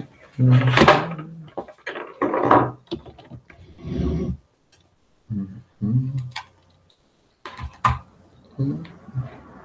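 Short stretches of a low, indistinct voice mixed with scattered clicks and knocks of objects being handled at a desk, with a couple of sharp clicks near the end.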